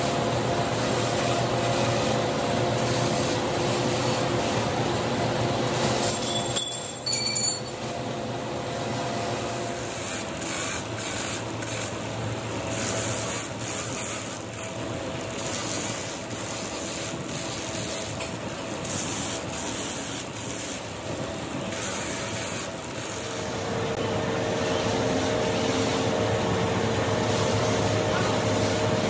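Handheld air-powered buffer with an abrasive disc running with a steady whine, grinding and rasping against the rubber tread of a truck tire casing to roughen it for retreading. The sound turns rougher through the middle, and the clean whine comes back near the end.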